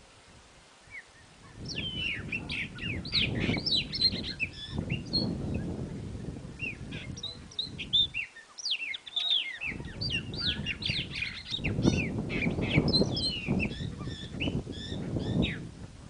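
Several birds chirping in a busy chorus of short, quick high notes, with a pause in the middle. A low rushing noise runs underneath and drops out for about a second midway.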